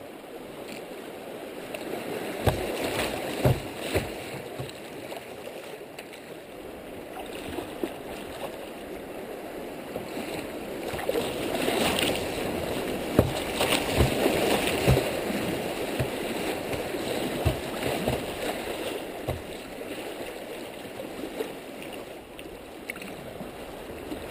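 Fast, rushing creek water churning around a kayak's bow through a riffle, with occasional sharp knocks and splashes of water against the hull. The rush builds from about two seconds in and is loudest around the middle.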